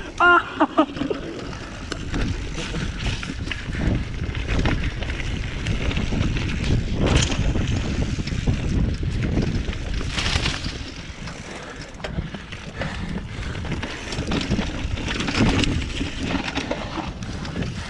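Mountain bike riding fast down a rough dirt trail: steady wind rumble on the microphone, with short knocks and rattles from the bike and tyres over the bumps.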